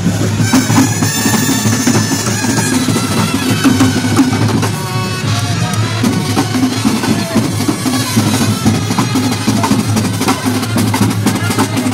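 Street brass band playing: bass drums and snare drums beating a fast rhythm, with brass horns playing over them.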